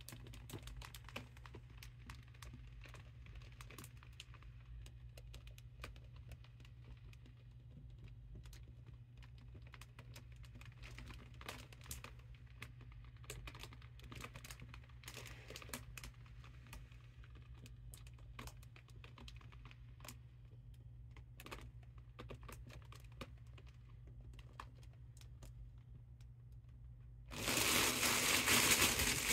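Mylar foil balloon crinkling faintly, with scattered small ticks, as a hand presses on it to push the air out and deflate it. About 27 seconds in, a much louder burst of crinkling as the foil is squashed flat.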